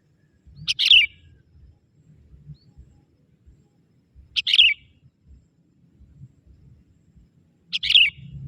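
Young sooty-headed bulbul (kutilang) decoy calling: three short, sharp calls, spaced about three and a half seconds apart.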